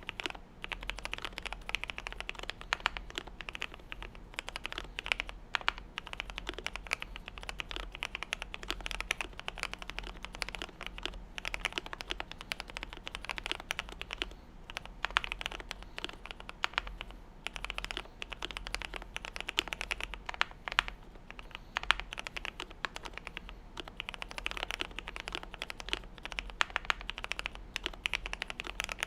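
Continuous fast typing on a GMMK Pro mechanical keyboard with lubed and filmed Gateron Yellow KS-3 linear switches, polycarbonate plate, gasket mod and PBT keycaps: a dense run of keystrokes with short pauses now and then.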